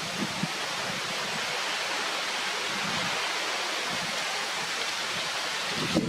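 Steady outdoor rushing noise, with a couple of soft low thumps, one just after the start and one near the end.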